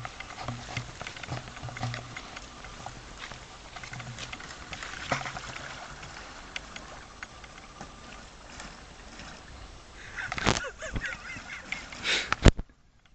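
Fat tyres of an ICE Full Fat recumbent trike rolling through a muddy puddle and wet leaves: water sloshing and splashing with crackling of mud and leaves, loudest in a couple of splashes near the end as the trike comes close.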